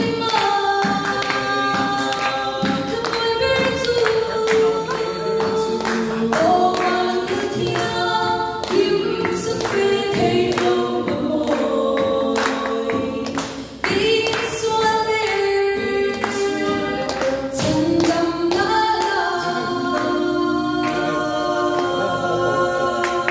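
A woman singing a song through a microphone and PA, accompanied by a strummed acoustic guitar.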